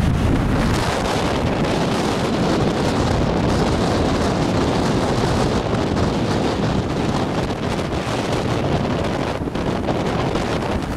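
Strong wind buffeting the microphone, with sea surf washing on the shore beneath it: a steady, loud rush of noise.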